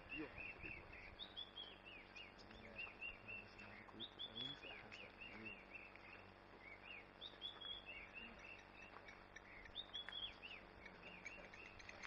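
Faint birdsong: many small birds chirping, with one short high phrase repeating about every three seconds.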